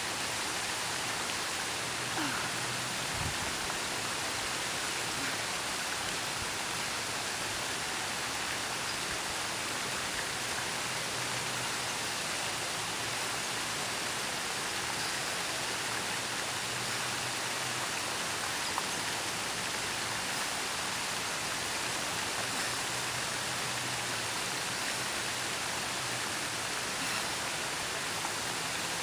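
Steady rushing of water from a small rock waterfall spilling into a pond.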